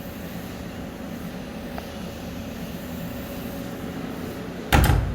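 Steady low hum, with a single loud thump near the end.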